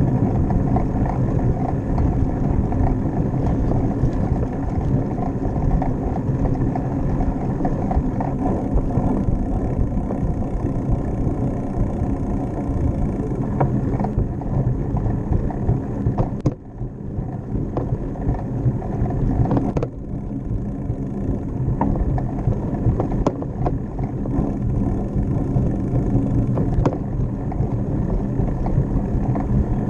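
Steady rumble of wind buffeting the microphone and road noise from a bicycle riding along a concrete path, with a few light clicks and knocks. The rumble drops for a few seconds a little past halfway.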